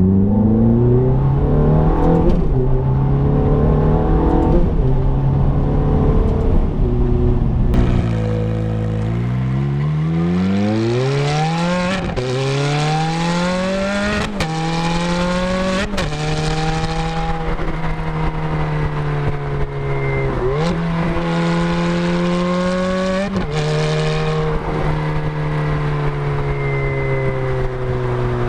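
2006 Ferrari F430's V8 under hard acceleration, shifting up through the gears on its single-clutch automated manual gearbox. The engine note climbs steeply, breaks at three quick upshifts about two seconds apart, then holds fairly steady with a couple of brief dips.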